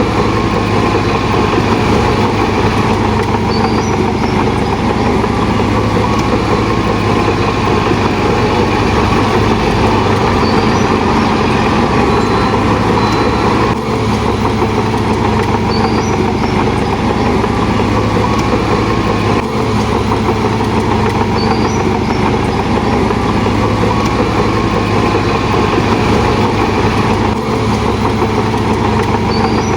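Heavy diesel earthmoving machinery running steadily, with faint short high squeaks about every five seconds.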